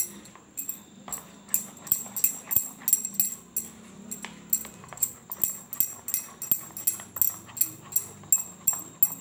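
A plastic spoon clicking and scraping against a ceramic bowl while stirring a thick chocolate biscuit batter, with quick sharp ticks at about three a second.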